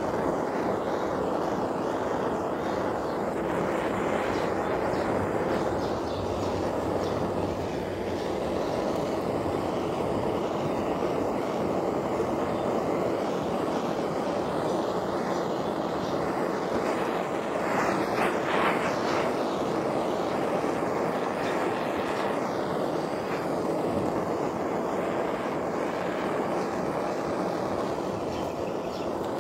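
Handheld gas blowtorch burning with a steady rushing noise as its flame is played over the surface of a carved wooden sculpture, scorching the wood. The noise briefly brightens a little past the middle.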